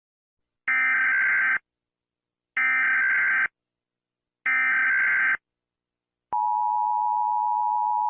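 Emergency Alert System header: three short bursts of screechy digital data tones, about two seconds apart. About six seconds in, they are followed by the steady two-tone EAS attention signal, which announces the next alert message.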